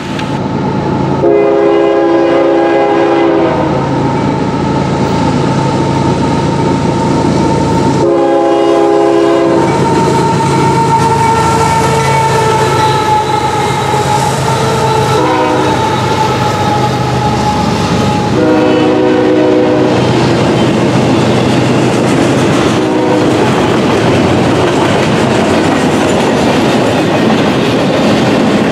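Air horn of a Canadian Pacific GE Evolution-series (GEVO) freight locomotive blowing the grade-crossing signal: two long blasts, a short one, then another long one. Underneath run the diesel locomotives and the clatter of the passing double-stack container train's wheels.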